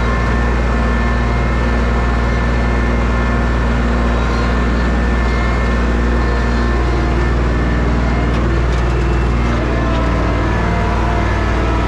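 An engine running steadily, most likely on the farm machinery used for the potato harvest, its note shifting slightly about ten seconds in.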